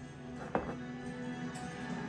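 Background music with steady sustained tones, and one sharp knock about half a second in.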